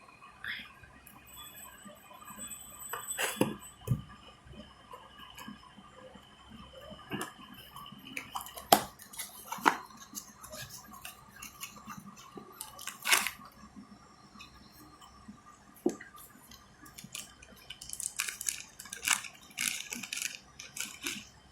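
Small hard plastic items being handled: irregular clicks, taps and knocks, with a spell of rustling near the end.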